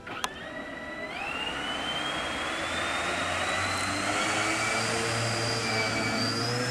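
Radio-controlled seaplane's motor and propeller whining as it throttles up for the take-off run across the water, the pitch rising steadily. A short click comes just after the start.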